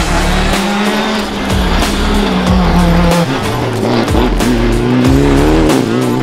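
Rally car engines running hard on a wet tarmac stage, the engine note holding, dropping and then climbing again, mixed with background music.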